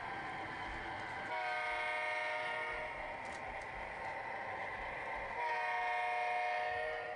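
A model O-gauge diesel locomotive's onboard sound system sounds its horn twice, each blast a steady chord about a second and a half long. Under the horn is the steady running noise of the train on the track.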